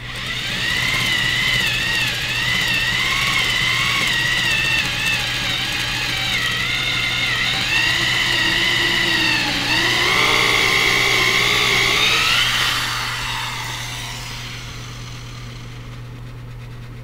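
Electric drill motor whining as it bores down through a doubled 2x4 wooden top plate, its pitch wavering up and down under load. The drill stops about three-quarters of the way through.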